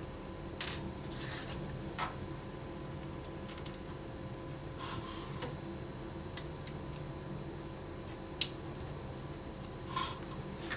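Scattered light clicks and taps of small metal parts being handled, about half a dozen spread irregularly, the sharpest near the start and about eight seconds in, over a faint steady electrical hum.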